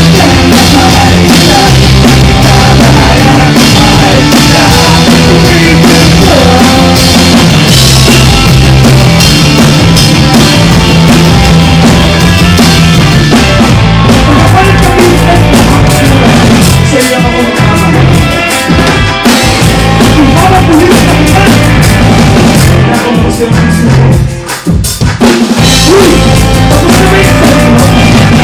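Live pop-rock band playing a loud instrumental passage: electric bass, electric guitar and a drum kit. The sound briefly drops a little after three-quarters of the way through, then comes back.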